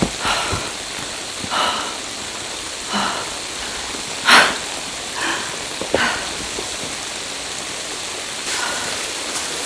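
Steady hiss of wet snow falling, broken by several short, louder noises, the strongest a little past four seconds in.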